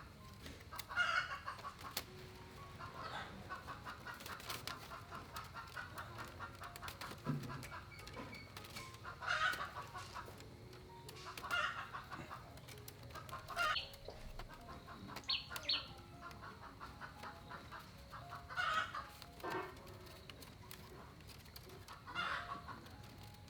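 Chickens clucking, with short calls coming about every two seconds.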